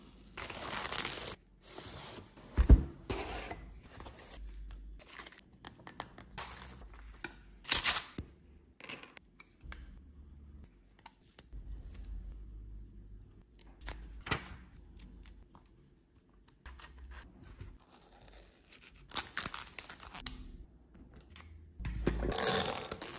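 Unboxing and handling a cardboard pinhole camera kit: packaging torn and crinkled in short bursts, and thin plywood parts rattling and clacking against each other, with one sharp knock about three seconds in.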